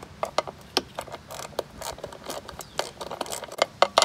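Socket ratchet clicking in short, irregular strokes as a 5/16 socket on a long extension turns the screw of a stainless steel hose clamp loose, with a quick run of louder clicks near the end.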